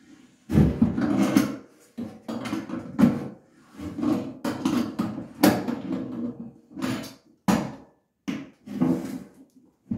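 Stainless steel basket strainer being turned and pressed in a stainless steel sink's drain hole: a run of irregular metal knocks and scraping rubs as it is shifted to center it in its bed of plumber's putty.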